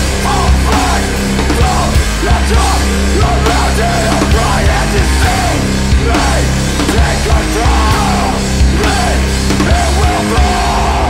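Loud hardcore punk band recording: distorted electric guitars, bass and drums all playing, with the full band coming in right at the start.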